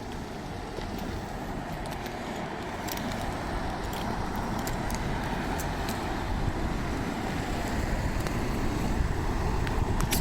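Road traffic: cars passing with steady engine and tyre noise that slowly grows louder.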